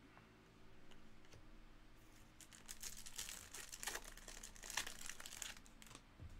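Foil wrapper of a Topps Chrome baseball card pack crinkling as it is torn open and peeled off the cards, from about two and a half seconds in until near the end; a few faint clicks of cards being set down come before it.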